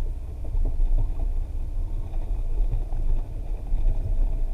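Off-road buggy's engine running as it moves along the trail: a steady low rumble with light knocks and rattles over it.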